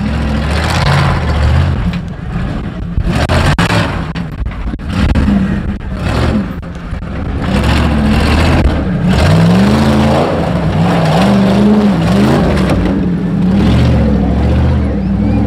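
Off-road 4x4 engine running and being revved. Its pitch climbs about nine seconds in, then goes up and down for a few seconds.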